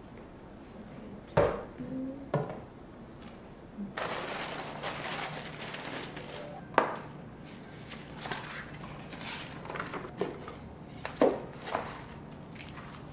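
Objects being handled: several sharp knocks and clunks, the loudest about a second and a half in and again near seven seconds, with a few seconds of steady rushing noise starting about four seconds in.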